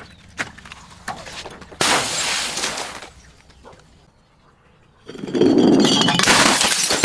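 Glass bottle breaking and crunching, in two long bursts: a few sharp clinks, then about a second of crunching starting about two seconds in, and a louder, longer crunch starting about five seconds in.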